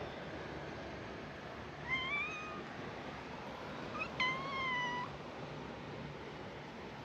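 Cat meowing twice: a short meow rising in pitch about two seconds in, then a longer meow about four seconds in that starts high and falls.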